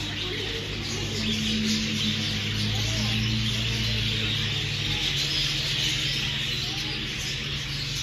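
A flock of budgerigars chattering and chirping continuously, many birds at once, over a steady low hum.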